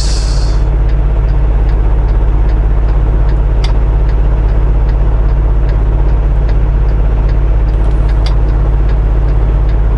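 Semi truck's diesel engine idling steadily, heard inside the cab, with a faint regular ticking about twice a second. A short hiss sounds at the very start.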